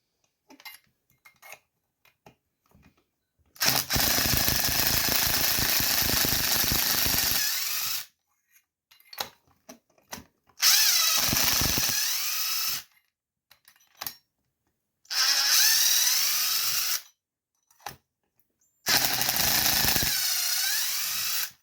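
Handheld power driver run in four bursts of a few seconds each, the first the longest, its motor whine rising and falling in pitch between bursts, with small clicks in the pauses.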